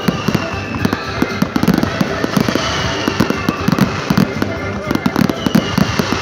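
Fireworks display going off: a dense, continuous run of bangs and crackles from many shells at once, with high falling whistles near the start, about halfway through and near the end.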